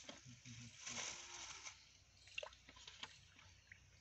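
Near silence: a faint outdoor background hiss with a few soft ticks.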